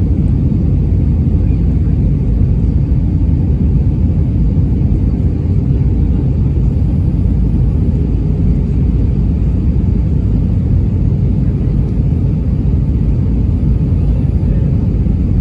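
Steady low rumble inside the cabin of an Airbus A319 airliner descending on approach: engine and rushing-air noise heard from a window seat, with no change in level.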